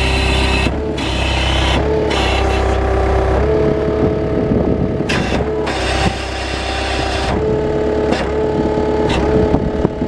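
Skid steer loader engine running steadily, its note stepping up and down in pitch several times.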